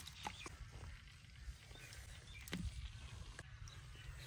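A few soft taps and clicks as raw chicken pieces are put by hand into a clay cooking pot, the loudest about two and a half seconds in, over a steady low outdoor rumble.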